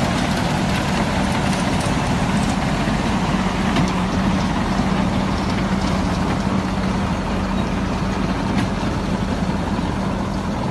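KAMAZ heavy truck's diesel engine running steadily while it tows a fuel tanker on a cable over packed snow, with a constant low hum.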